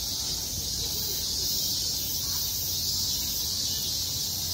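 Cicadas in the trees singing in a dense chorus, a steady high-pitched drone without pauses, over a low background rumble.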